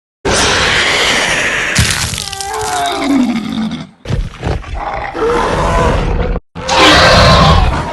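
Loud animal roars that start and stop abruptly in several spliced pieces, with a roar falling in pitch about two and a half seconds in.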